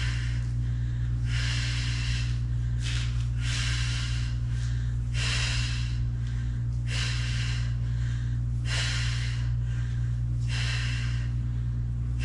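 A woman breathing hard in and out through her mouth while doing single-leg glute bridge reps, one breath about every one and a half to two seconds, paced to the reps. A steady low hum runs underneath.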